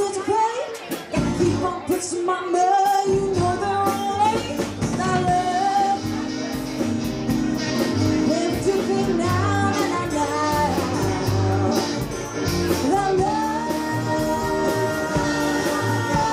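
Live rock band playing, with a woman singing lead over electric guitars, keyboards and drums.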